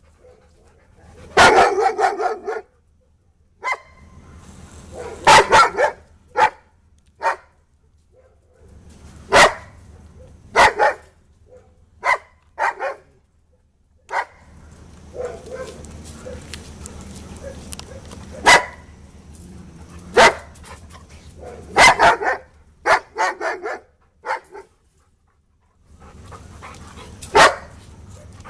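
Dog barking repeatedly in short, sharp barks, some single and some in quick pairs, at irregular intervals.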